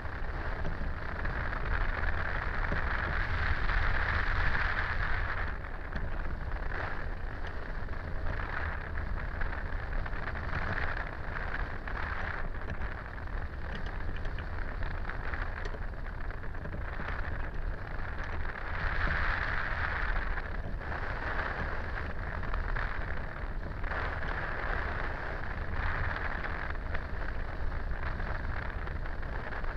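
Wind rushing over the camera microphone on a hang glider in flight: a steady noise with deep buffeting rumble that swells and eases several times, loudest about four seconds in.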